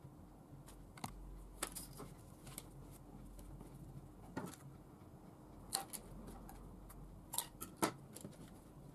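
Scattered light taps and clicks from small foam, plastic-straw and motor craft pieces being handled and set down on a wooden table, over a low steady hum.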